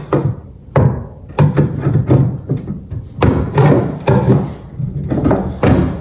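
A hammer striking repeatedly, about ten sharp blows at uneven half-second intervals, driving an easy-out into a seized tailgate bolt.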